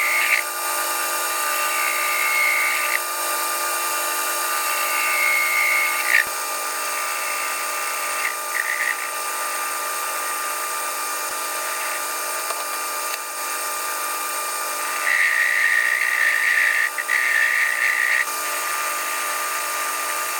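Metal lathe running steadily while a cutting tool turns a copper part, with a higher-pitched cutting whine in several short passes and one longer, louder pass near the end.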